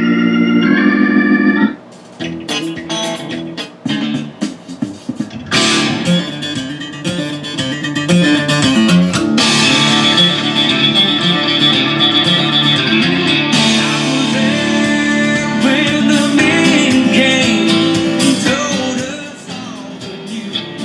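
Guitar music with singing played from an iPod through the auxiliary input of a restored 1973–79 Ford truck AM/FM stereo radio. It cuts out abruptly under two seconds in, resumes, and gets quieter near the end.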